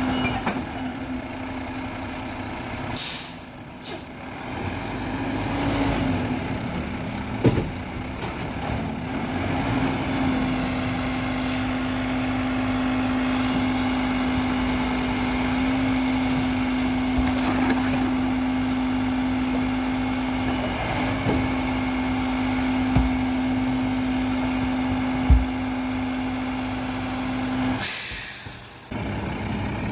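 A Mack LEU garbage truck with a Labrie Expert 2000 side-loading body runs with a steady droning tone. Its air brakes hiss sharply about three seconds in and again near the end. A few light knocks come from the truck's equipment in between.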